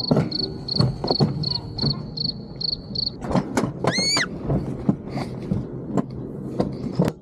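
A downhill mini-train ride cart rattling and clacking along its track, with a rumble under sharp clicks throughout. A child gives one loud rising-and-falling scream about four seconds in. A high, even chirping, about three a second, runs through the first three seconds.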